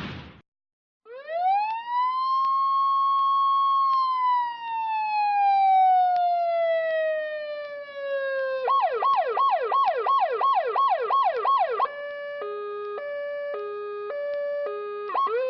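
Electronic emergency-vehicle siren cycling through its tones. A slow wail rises about a second in, holds, and falls gradually. Then comes a fast yelp of about three warbles a second, then a two-tone hi-lo alternation, and a new rise starts near the end.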